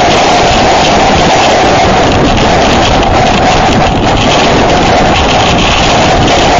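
Hurricane-force wind blasting the microphone, mixed with wind-driven rain, loud and unbroken, with a steady high moan running through it.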